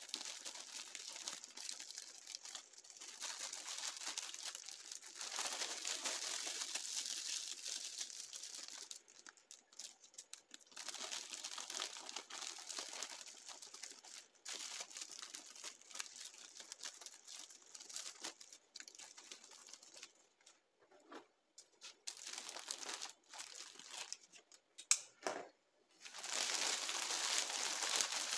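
Cellophane bag crinkling and rustling in bursts as hands gather its top around folded dish towels, with short pauses and one brief sharp click about three-quarters of the way through.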